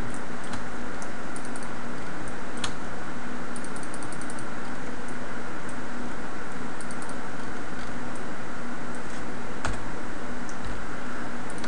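Steady hiss from the recording microphone with a faint low hum, and scattered light clicks of computer keys and mouse buttons, some in quick little clusters.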